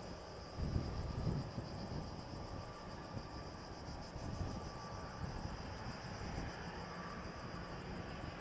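Insects chirping in a fast, even, high-pitched pulse of about five beats a second, over a low wind rumble on the microphone that gusts about a second in.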